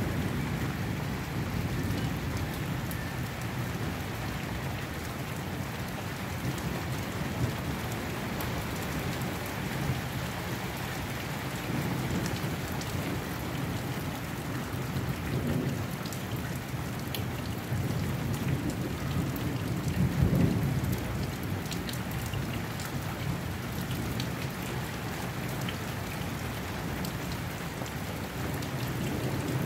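Steady rain falling, with scattered raindrop ticks and low thunder rumbling underneath. The thunder swells in waves and is loudest about two-thirds of the way through.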